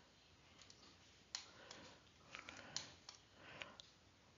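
Several faint, scattered computer mouse clicks over near-silent room tone, as points are clicked to draw a measurement.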